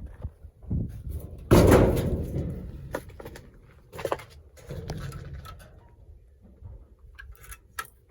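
A sudden loud thud about one and a half seconds in, with a low rumble trailing off over a second or so, then a few lighter, sharp knocks spread through the rest.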